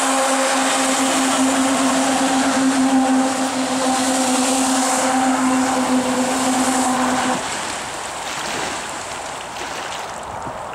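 Electric jet drive of a DIY jet kayak running at speed: a steady whine from the motor and impeller over the hiss of the water jet spraying out of the stern. The whine cuts off about seven seconds in, leaving the rush of water from the wake.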